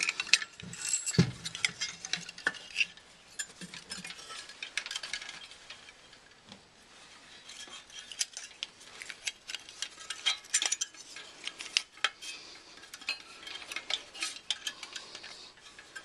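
Irregular metallic clicks, taps and light scraping of furnace parts being handled and fitted together by hand, a thin metal cover among them. The taps come in scattered clusters, thinning out briefly near the middle.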